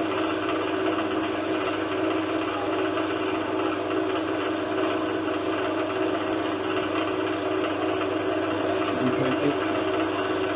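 Wood lathe running at a steady speed, a constant hum, while a twist drill bit held in a hand chuck bores into the spinning root blank to drill a tobacco pipe's airway.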